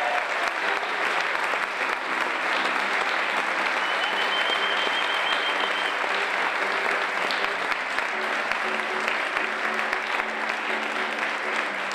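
Audience clapping steadily in a large hall, with a high whistle held for about two seconds about four seconds in. Faint sustained instrument notes sound underneath.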